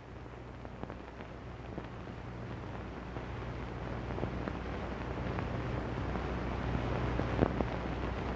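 Background noise of an old film soundtrack between narration: a steady hiss over a low hum, with scattered faint crackles, slowly growing louder.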